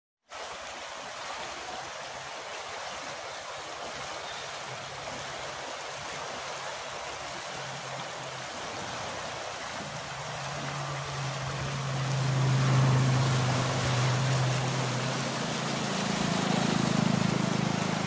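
Fast-flowing river water rushing steadily in a channel. In the second half a low rumble swells in, loudest about two-thirds of the way through, with another swell near the end.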